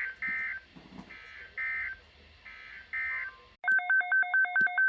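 Emergency Alert System digital data bursts on NOAA Weather Radio: three pairs of short, harsh warbling squeals, the end-of-message signal closing the special marine warning. About three and a half seconds in, a loud, fast electronic beeping that alternates between two pitches starts up, an alert tone ahead of the next message.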